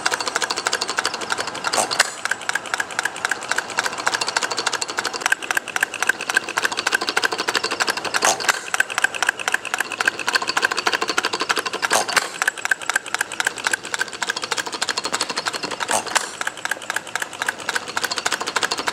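Miniature 2.22 cu. in. bar-stock hit-n-miss engine running, its mechanism making a fast, steady clatter of ticks, with a louder sharp crack every few seconds.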